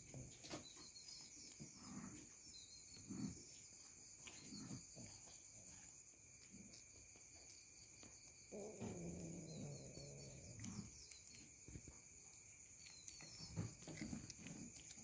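Faint sound of a cat chewing a gecko, with soft crunching bites every second or so, over a steady high-pitched drone of night insects. About halfway through, a low, drawn-out cat vocalization lasts about two seconds.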